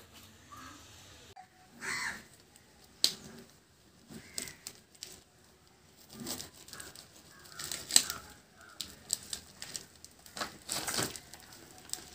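Scattered short knocks and clicks with brief rustling in between, the sharpest about three seconds in and eight seconds in, and a small cluster near the end.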